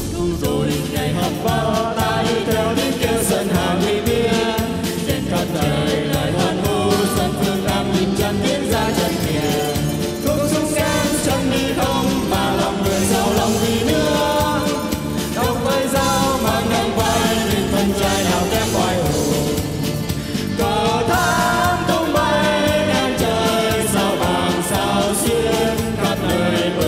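Men and a woman singing a Vietnamese song into microphones over accompanying music.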